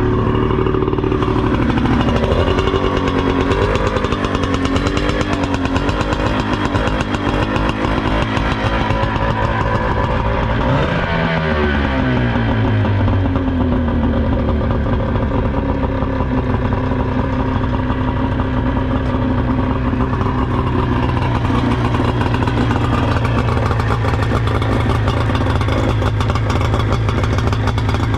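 50 hp Johnson outboard motor running on a water flush, its speed wavering up and down. About eleven seconds in it drops and climbs back, then settles to a steady run.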